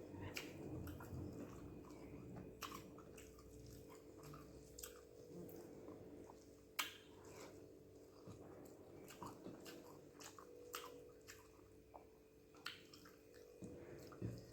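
A person chewing rice and egg gravy, with faint, irregular wet mouth clicks and smacks and one sharper click about seven seconds in.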